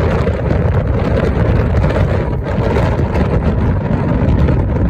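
Loud, steady rush of wind buffeting the microphone over the low rumble of a moving vehicle.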